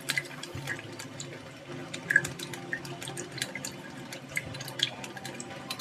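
Metal spoon stirring lime juice and sweet soy sauce in a glass, clinking against the glass in light, irregular ticks several times a second.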